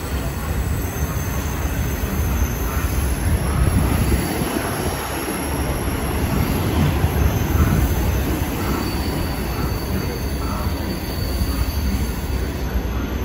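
Freight train's loaded flat wagons rolling past close by: a steady rumble of steel wheels on rail.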